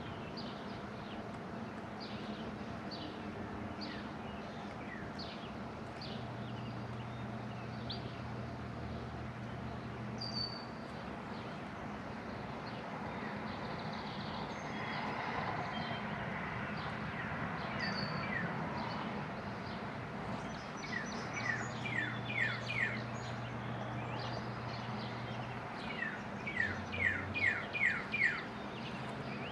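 Small birds chirping in the background: scattered short chirps, then two quick runs of five or six chirps in the second half, the loudest sounds here. A low steady hum comes and goes twice.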